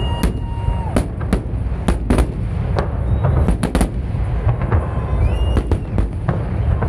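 Fireworks barrage: a rapid, irregular series of sharp shell bursts and cracks over a steady low rumble.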